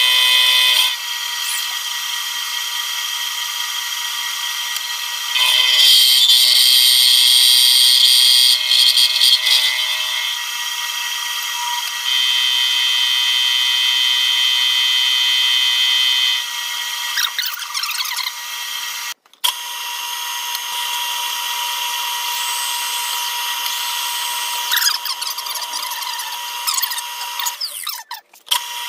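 ATrump mill's end mill cutting an aluminium block: a steady high motor whine, getting louder and harsher in two stretches of a few seconds each. The sound drops out briefly twice near the end.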